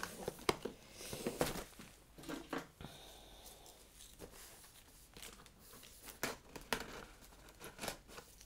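Packaging being handled and unpacked: crinkling and tearing with irregular sharp clicks and taps, busier in the first couple of seconds and again near the end.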